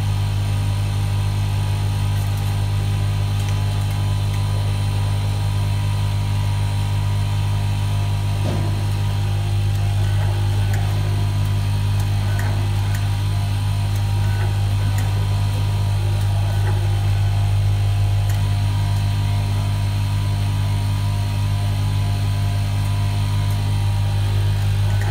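Automatic nylon cable tie machine running with a steady low electrical hum, with a few faint clicks from wires being handled.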